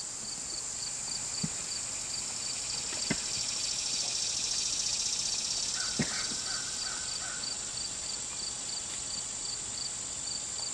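Insects in woodland: a steady high shrill drone with a chirp repeating about three times a second. A few faint clicks come through, and a brief rasping call about six seconds in.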